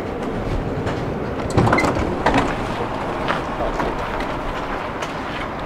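Tram standing at the stop with its doors open: a steady low hum and rumble, broken by a few sharp knocks about one and a half, two and a half and three and a half seconds in.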